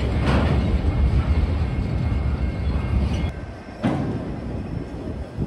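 Freight train cars rolling past close by: a heavy steady rumble of wheels on rail with occasional clanks. The rumble drops quieter a little past halfway, and there is a sharp clank about 4 seconds in.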